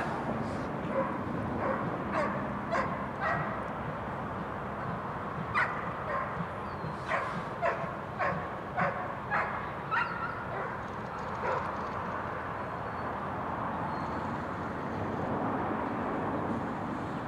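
A dog barking in short, irregularly spaced barks, a dozen or so, that stop about two-thirds of the way through. Underneath is the steady running sound of a steam locomotive pulling a train away.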